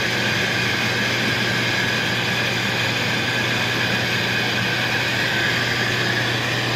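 Royal Master TG 12x4 centerless grinder running idle, with its grinding and regulating wheels turning and its hydraulic unit's motor and pump running: a steady, even hum that does not change.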